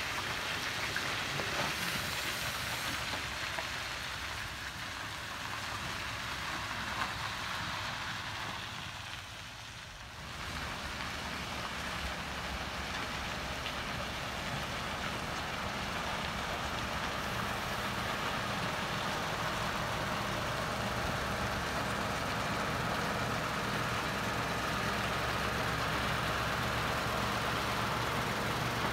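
Scania R164's V8 diesel engine running, a steady low hum under a noisy hiss. It dips briefly about ten seconds in, then grows louder and steadier for the rest of the clip.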